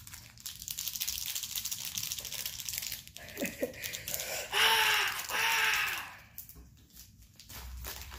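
Plastic chocolate-bar wrapper crinkling and rustling as it is twisted and pulled at by hand, trying to tear it open. About halfway through, two loud strained vocal sounds of effort, then lighter rustling.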